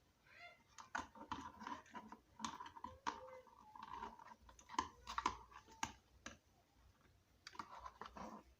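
Electrical insulation tape being pulled off the roll and wound around a wire joint: irregular sticky clicks and crackles.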